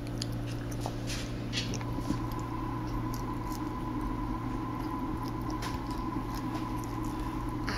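Soft scattered clicks, taps and rustles from a toddler eating at the table, his fork knocking on the dish, over a steady low hum.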